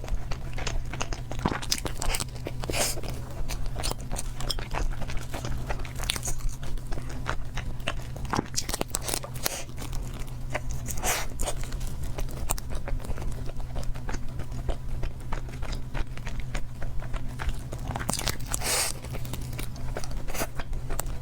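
Close-miked eating: a person biting and chewing food with wet mouth sounds and irregular crunches and crackles, over a steady low hum.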